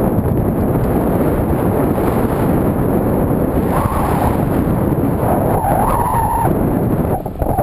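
Wind buffeting the microphone of a camera on a moving bicycle, a loud, steady rumble, with tyre noise from the road. A brief squealing tone rises out of it about four seconds in, and a longer one follows about a second later.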